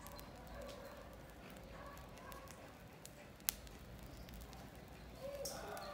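Burning matchsticks crackling faintly, with one sharp pop about three and a half seconds in.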